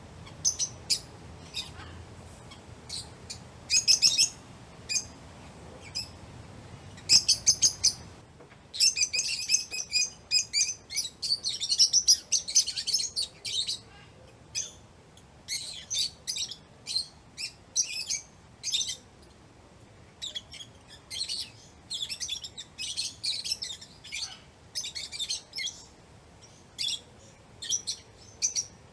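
A flock of lovebirds chirping: quick, high-pitched chirps in irregular clusters, with dense bursts of overlapping calls, the longest about a third of the way in, between sparser single chirps.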